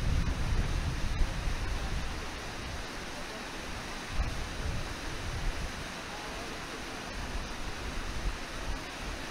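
Steady rush of water pouring over Brooks Falls and through the river rapids. Wind on the microphone adds a low rumble that is strongest for the first couple of seconds, then eases.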